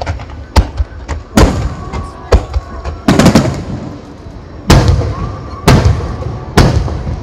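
Aerial firework shells bursting in quick succession: about eight sharp booms in seven seconds, each followed by a rumbling echo.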